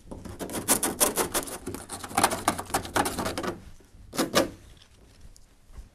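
Hand sanding of fibreglass (GRP) laminate with 60-grit sandpaper: rapid back-and-forth scratchy strokes, abrading the inside face of the hull around the repair hole to key it for bonding the backing pad. The strokes stop about three and a half seconds in, with one more short stroke a little after four seconds.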